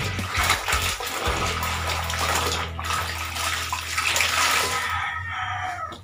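Water sloshing and splashing in a basin of soapy water as laundry is rinsed by hand, the clothes dunked, rubbed and squeezed so that water pours back into the basin. The splashing eases off near the end.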